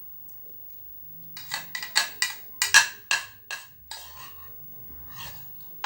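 A spoon tapping and knocking against a plate or bowl: about ten quick, sharp taps in a couple of seconds, then a few fainter ones.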